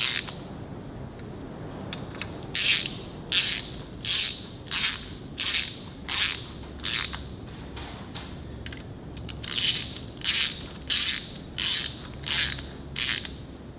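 Small hand socket ratchet clicking in short back-and-forth strokes while snugging up hub cap bolts: a run of about seven strokes, a short pause, then about six more.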